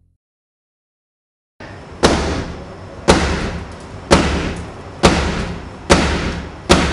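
After a second and a half of silence, a car's side window covered in security film is struck hard six times, about once a second. Each blow is a sharp bang that dies away quickly.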